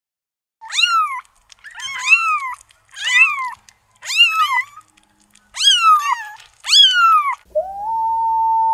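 Kitten meowing, about six short high mews a second or so apart, each rising and falling in pitch. Near the end a wolf starts a long howl held at a steady pitch.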